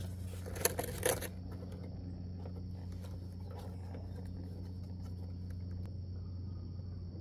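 A steady low hum with a faint, steady high whine over it, and two light knocks about a second in as the freshly removed oil filter is handled.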